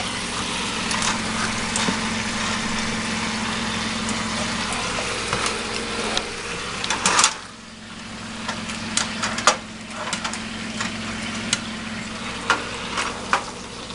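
Chicken pieces sizzling in a hot pan of soy, rice-wine and garlic sauce, with scattered clicks of a utensil stirring them to coat. About halfway through the hiss is broken by a cluster of loud clicks and dips briefly before the frying picks up again, over a steady low hum.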